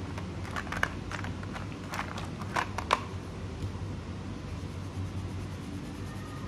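A quick run of sharp clicks and taps in the first three seconds as a coloring marker is picked up and handled on a desk, then only a steady low background hum while the coloring goes on.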